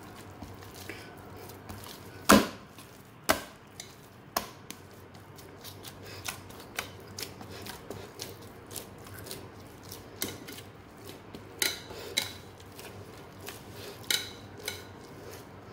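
Hands kneading soft, sticky pav dough in a glass bowl: irregular knocks and clicks against the glass. Three sharper knocks come within the first five seconds, then lighter scattered clicks.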